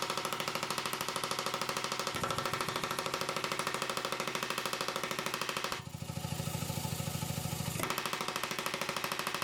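A forging hammer striking hot wrought iron in a fast, steady rhythm of many blows a second, easing briefly about six seconds in before picking up again.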